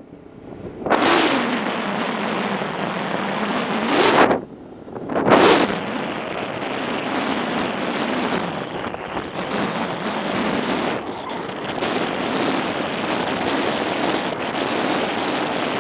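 Wind rushing over the microphone of a riding motorcycle, with the engine running underneath; three heavier buffets come in the first six seconds, then a steady rush.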